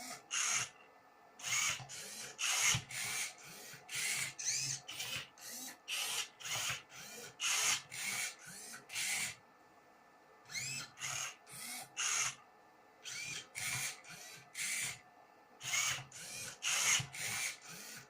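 Motors of a homemade Rubik's cube solving robot turning the cube's faces move after move: a string of short whirring bursts, about two a second, each sweeping up in pitch, with a pause of about a second near the middle.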